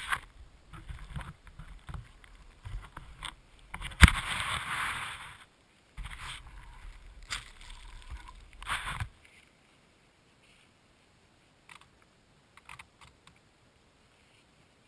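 Muffled knocks, rubbing and scraping picked up through a GoPro's housing on the nose of an RC foam plane as it is handled and moved about on snow, with a sharp knock about four seconds in. After about nine seconds it falls nearly silent apart from a few faint clicks.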